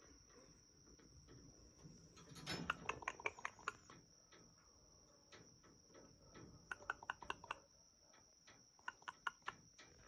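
Three quick runs of light clicks and taps, several a second, over a faint steady high-pitched whine.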